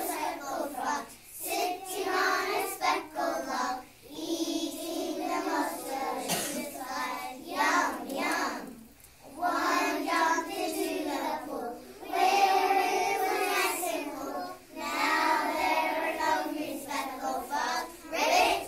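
A class of kindergarten children singing together in unison, in phrases with short breaks between them.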